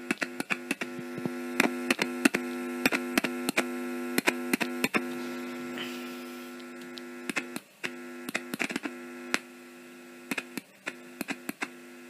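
Morse code paddle key tapped in a quick, irregular run of sharp clicks, heard through a cassette recorder's microphone input. A steady electrical hum runs under the clicks and cuts out briefly twice in the second half.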